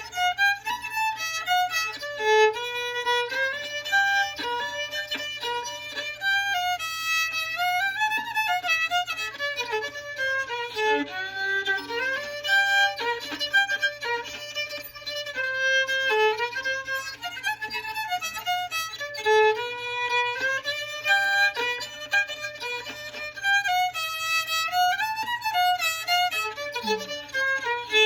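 Solo fiddle playing an old-time fiddle tune in the key of G, a quick run of bowed notes climbing and falling.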